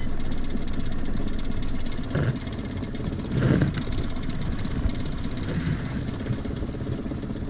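Small boat outboard motor running steadily at low speed, a fast even pulse of firing strokes, steered by its tiller. A couple of brief louder sounds rise over it about two and three and a half seconds in.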